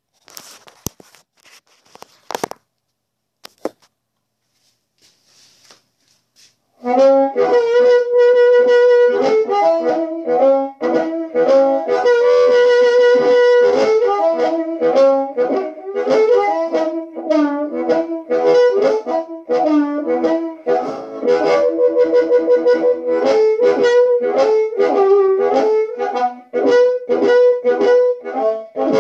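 A few handling clicks and knocks, then from about seven seconds in an amplified blues harmonica played through a bullet mic (Turner dynamic element in an Astatic 200 shell) into a Lone Wolf Harp Train 10 amp. It plays a rhythmic riff of short repeated notes mixed with held notes.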